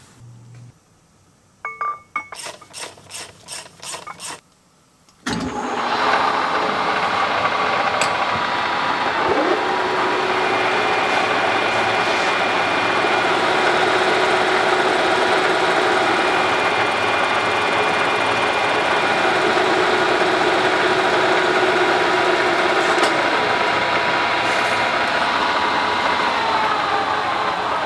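Milling machine running, its end mill cutting flats into a 7075 aluminum link bar: a steady machine noise with several held tones that starts suddenly a few seconds in. Near the end the machine is switched off and the tones slide down as it spins down. Before it starts there is a short series of clicks.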